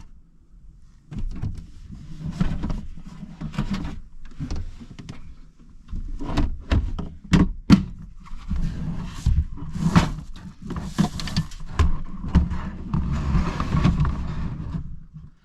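Cooking gear and camping things being rummaged through and moved around in a truck bed shell: an irregular run of knocks, clunks and clicks with rustling, busiest in the second half.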